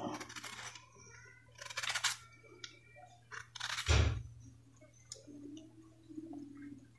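A kitchen knife scraping the ridged skin off a bitter gourd (karela), in a series of short, irregular scrapes, with one louder soft knock about four seconds in.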